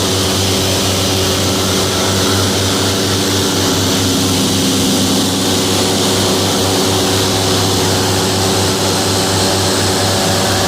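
Airboat's engine and large air propeller running steadily: a loud, even drone.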